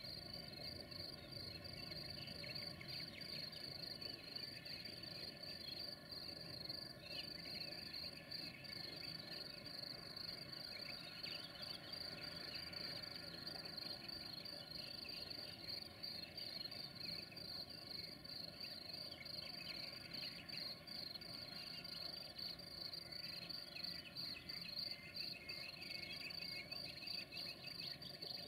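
Crickets chirring steadily, a high, fast-pulsing trill.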